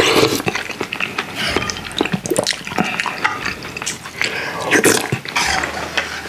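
Close-miked eating sounds: slurping and chewing spoonfuls of soft tofu stew with rice, wet mouth noises and many short clicks.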